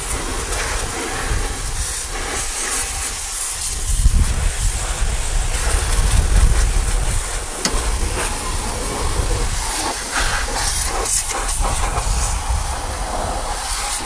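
High-pressure water jet from a pressure-washer lance hissing against a vehicle's axle, differential and underbody, swelling and fading as the spray moves. Under it runs the steady low rumble of the HTP piston pump washing machine.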